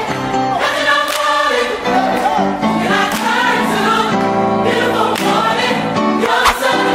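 Intro music: a choir singing a melody over sustained chords, with regular drum hits.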